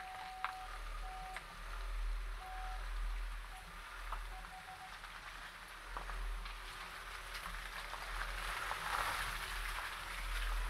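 Ford Kuga SUV crawling off-road, heard from a camera mounted on the outside of the car: a low rumble with a steady crackle and scattered ticks from the tyres on dirt and grass. A thin beeping tone sounds several times in the first five seconds.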